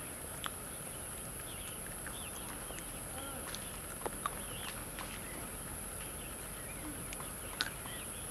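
Tea-garden ambience: a steady high insect drone, scattered short bird chirps, and a few sharp clicks, the loudest near the end.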